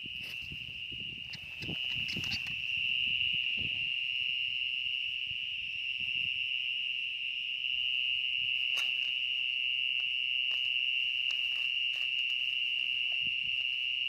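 A steady high-pitched insect trill that never breaks, from insects in the grass and rice stalks. Grass and stalks rustle over the first few seconds, and there are a few light clicks in the middle.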